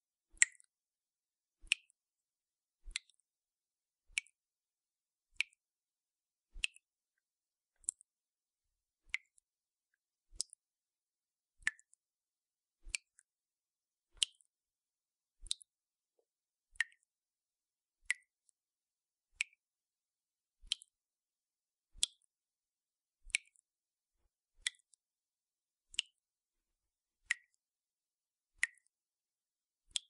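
Water dripping from a tap, one drop about every second and a quarter at a steady pace, each a short plink whose pitch changes slightly from drop to drop.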